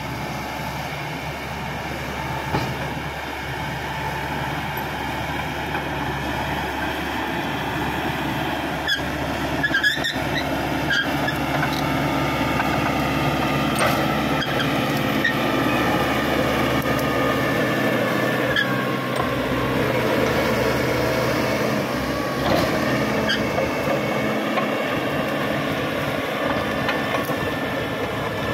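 Caterpillar D5K XL crawler bulldozer at work: its diesel engine runs steadily under load, with high squeals and clanks from the steel tracks. A few sharp knocks come about nine to eleven seconds in.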